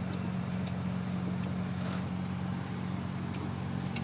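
Steady low drone of an engine running at an even idle, with a few faint sharp clicks over it.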